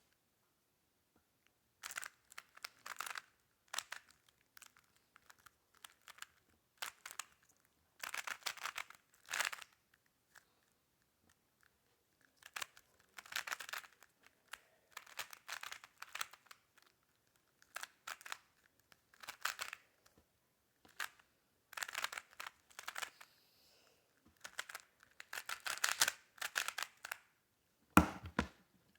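A speedcube being turned fast by hand: bursts of plastic clicking and rattling a second or two long, with short pauses between, and a low thump near the end.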